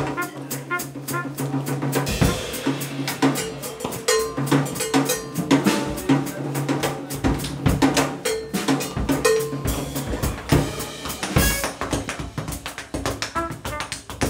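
Tap shoes striking a wooden stage in fast rhythmic patterns, a tap dance over swing-band accompaniment with drums and held low notes.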